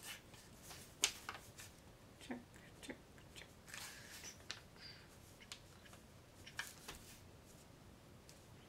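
Pen tapping and scratching on a paper chart as drill bag codes are checked off: faint scattered clicks, the sharpest about a second in.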